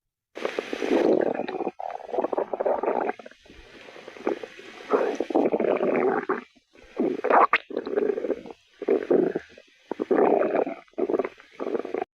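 Loud human stomach growling: long gurgling rumbles in several stretches separated by short breaks. The growling is put down to an empty stomach, nothing having been eaten at all.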